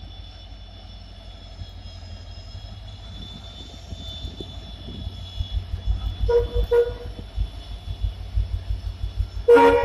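Indian Railways WDP-4D diesel locomotive pulling away at low speed, its engine rumble and wheel thuds on the rail joints growing louder as it draws level. It sounds two short horn toots about six seconds in, then a longer horn blast at the end, the loudest sound. A faint steady high whine runs underneath.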